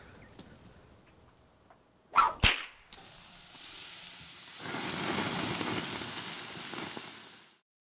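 Two sharp, whip-like swooshes in quick succession about two seconds in, then a hissing noise that builds up, holds for a few seconds and cuts off abruptly near the end.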